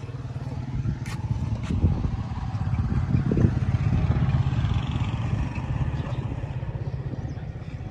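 Motorcycle engine running while riding, a steady low drone that swells a little through the middle.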